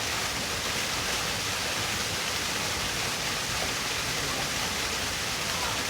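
Water falling steadily in a crocodile exhibit's waterfall, an even, unbroken rush of splashing water.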